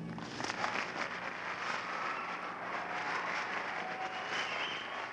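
Audience applauding and cheering: a dense, steady crackle of clapping with a few faint voices calling out.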